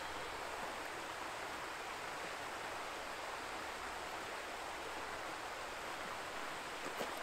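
Steady rush of water pouring over a small canal weir.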